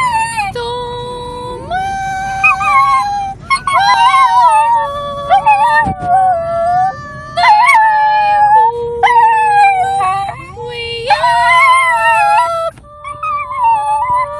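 A pet dog howling along to music, a series of long, wavering howls that slide up and down in pitch.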